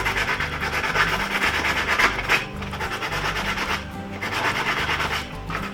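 Coarse 80-grit sandpaper rubbed by hand in quick back-and-forth strokes over dried glazing putty on a 3D-printed plastic part, a dry scratchy rasping that swells louder a couple of times. Background music plays underneath.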